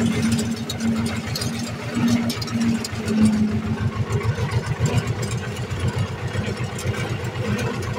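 Ursus tractor's diesel engine running steadily, heard from the driver's seat, as it pulls a finger-wheel hay rake across a field.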